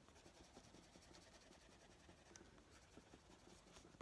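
Faint scratching of a wax-based Prismacolor coloured pencil on paper, worked in small circular scumbling strokes, with a small click near the end.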